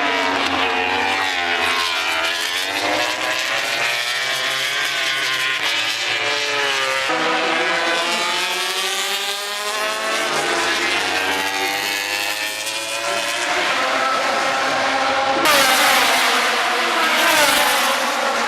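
MotoGP racing motorcycles at high revs, several bikes at once, their engine notes rising and falling as they go through the gears and pass by. The sound changes abruptly about seven seconds in and again near the end.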